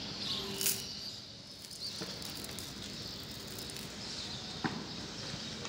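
Outdoor street ambience with faint bird chirps and a couple of short sharp clicks.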